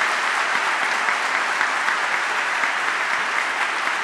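Audience applauding steadily in a large hall: dense, even clapping from a big crowd.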